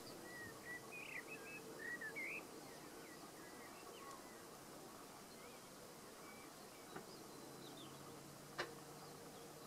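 Faint skylark song: a run of quick, squeaky warbled notes for the first two and a half seconds, then only scattered thin chirps. One sharp click comes about eight and a half seconds in.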